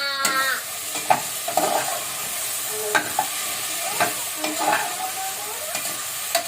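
Vegetables sizzling in oil in a pressure cooker pot while a spoon stirs them, knocking and scraping against the pot several times.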